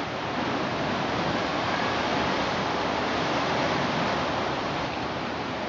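Steady rushing outdoor seaside ambience: an even noise with no distinct events, a little louder through the first few seconds.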